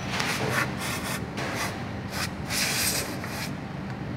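Aerosol brake cleaner sprayed through a straw onto a front brake caliper bracket in about eight short hissing bursts, to clean the brake pad seat. The bursts stop about three and a half seconds in. A steady low hum runs underneath.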